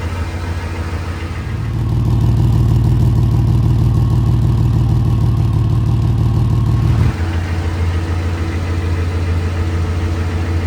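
Ford F-150 engine idling steadily through its repaired exhaust. The pipe joint is sealed with clamps and joint sealant, and the exhaust is no longer leaking or making its earlier noise. The hum grows louder about a second and a half in and drops back abruptly about two-thirds of the way through.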